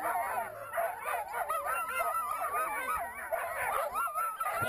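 Chorus of many sled dogs barking, yipping and howling at once, dozens of high wavering yelps overlapping without a pause.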